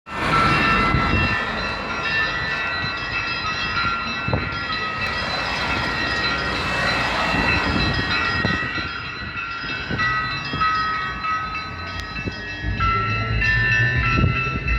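Orthodox church bells being rung in a peal: several bells struck in turn, their ringing tones overlapping and hanging on. A low steady tone joins near the end.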